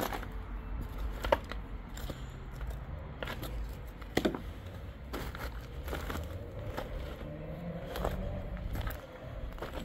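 Footsteps crunching and scraping over debris, irregular steps roughly once a second, over a low steady rumble.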